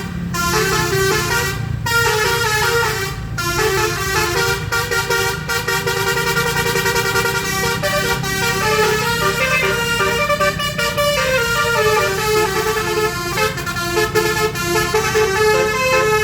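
A bus's 12-trumpet basuri (telolet) musical air horn plays a tune, its notes stepping up and down in quick succession without a break. A steady low hum sits beneath it.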